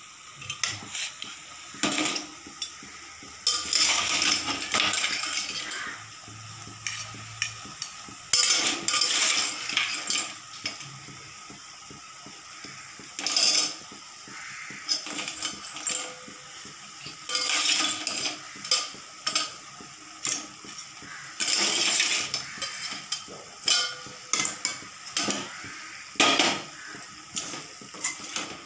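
Metal slotted spatula scraping and clanking against a steel kadai as greens and crabs are stirred, in irregular bursts.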